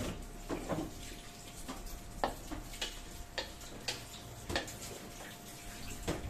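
Spatula stirring vegetables in a wok: irregular knocks and scrapes of the utensil against the pan, about one or two a second.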